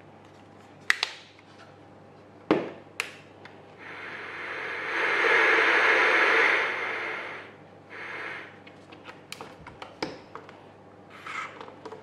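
Surya SHT 5W-2 torch-radio being handled: sharp plastic clicks about one second in and twice more around two and a half to three seconds. Then static hiss from its radio speaker swells and fades over about three seconds as the radio is switched on and tuned. A run of small clicks and rattles near the end comes as its telescopic antenna is pulled out.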